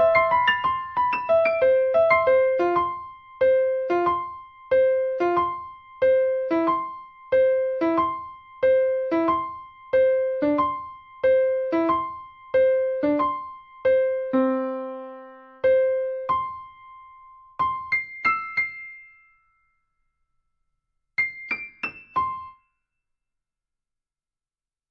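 Solo piano playing the ending of a piece: a repeated pattern of notes at about two a second that slows and thins out before stopping. After a short pause, a few quick high notes close it, and the sound dies away.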